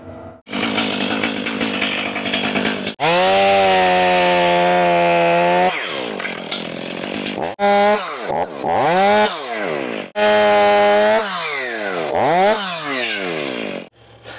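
Two-stroke chainsaw revving to full throttle and cutting in two stretches of a couple of seconds each, dropping back toward idle between them with quick rises and falls in pitch as the throttle is blipped.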